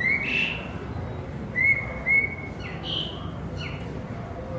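Asian pied starling (pied myna) singing a string of short whistled notes: a rising note at the start, two level whistles back to back in the middle, then a higher note and quick falling slurs near the end.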